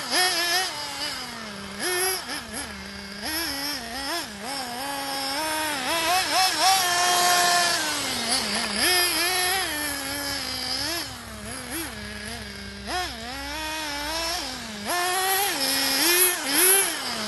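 Novarossi nitro engine of a Serpent Cobra 811 1/8-scale RC buggy revving up and down with the throttle as the buggy is driven, its pitch repeatedly climbing and then dropping back to idle.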